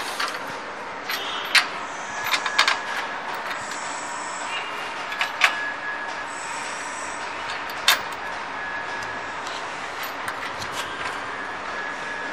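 Sharp metallic clinks and knocks from hands and tools fitting parts onto a steel machine frame, a handful of them spread over the first eight seconds, above steady background noise.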